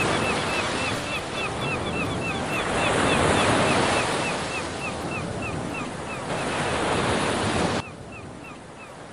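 Ocean surf breaking on a beach, a steady rushing wash, with a rapid run of short high chirps repeating about three times a second over it. The sound drops sharply near the end.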